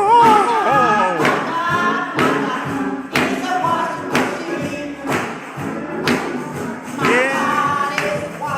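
Gospel music: a lead voice sings with strong vibrato over steady percussion beats, with choir and tambourine.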